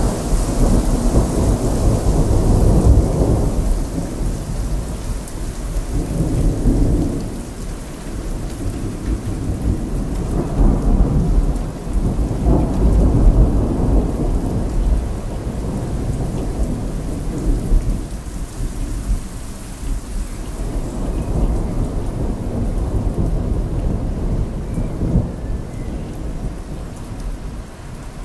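Thunderstorm: thunder breaks in abruptly and rolls on in several deep swells of rumbling, dying down near the end, over steady rain.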